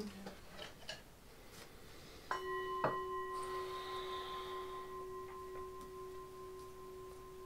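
A bell-like metal tone, such as a singing bowl or small bell, struck once about two seconds in and ringing on with several overtones, slowly fading. A light knock follows about half a second after the strike.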